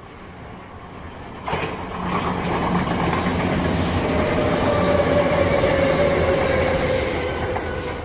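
A Sanyo Electric Railway electric train passing close by. Its rumble and wheel clatter build and jump suddenly about a second and a half in as the cars come alongside. A steady whine slides slightly lower in pitch through the loudest part, and the sound eases near the end.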